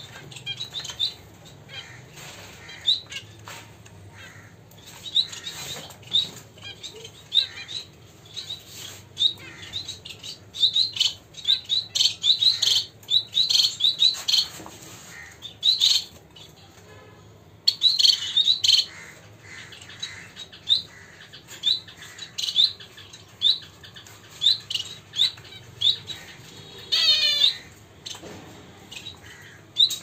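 Small caged finches calling: short, high chirps repeated throughout, coming in quick clusters through the middle and ending in a quick run of falling notes near the end. Short rustles of wing flutters and hops sound among the calls.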